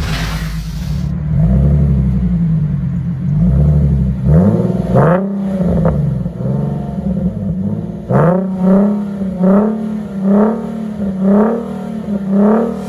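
Nissan 370Z's 3.7-litre V6 through a Kinney's Street Demon true dual performance exhaust, idling and revved in blips. There are a few slower revs at first, then from about eight seconds in a quick run of short blips, about two a second.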